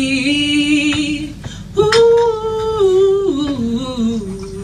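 A woman's voice singing a wordless, unaccompanied 'ooh': one held note with vibrato, then after a short gap a higher note that steps down twice.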